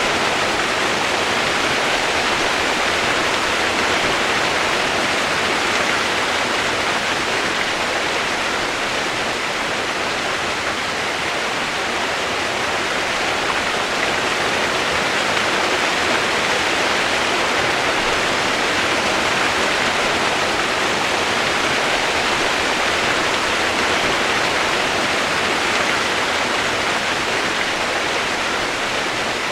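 Steady, unbroken rush of running water, with no other sound standing out.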